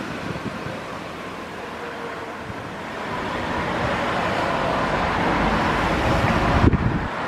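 Street traffic noise: a road vehicle passing, its noise rising over a few seconds before easing slightly near the end.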